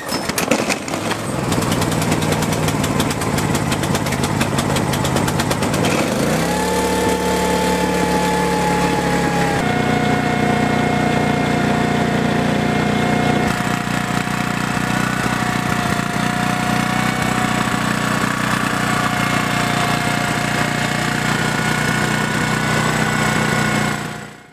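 Briggs & Stratton Q6500 inverter generator's 306cc overhead-valve four-stroke engine being pull-started, catching at once and running steadily. Its engine speed steps up about six seconds in and shifts again a few seconds later before settling.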